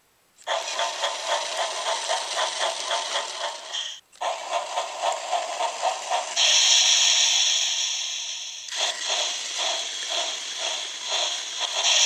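Battery-powered TrackMaster remote-control Thomas the Tank Engine running on plastic track, giving a rhythmic chugging of about four beats a second. The sound breaks off briefly about four seconds in, and a steady high hiss joins it from about six seconds.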